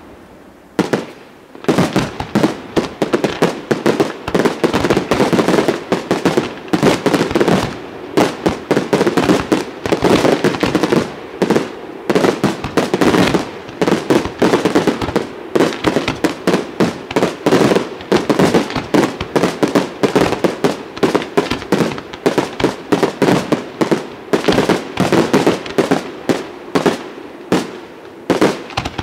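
Aerial fireworks display firing a rapid barrage: dense, near-continuous bangs of shells and comets launching and bursting, several a second, starting about a second in.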